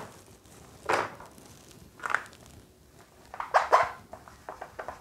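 Marker pen writing on a whiteboard: a few short, separate strokes, with a cluster of quicker ones near the end as numbers are written.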